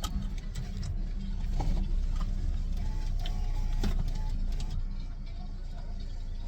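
Steady low rumble of a car in motion, with scattered small clicks and rattles.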